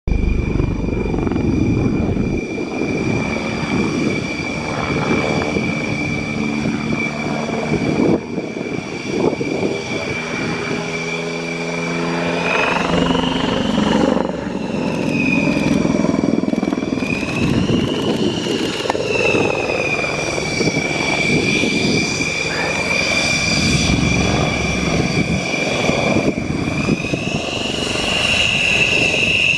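Dassault Rafale's twin Snecma M88 jet engines running at low taxi power: a steady high whine over a rough rumble. The whine rises a little in pitch a few times, about halfway through and again near the end, as the throttle is nudged.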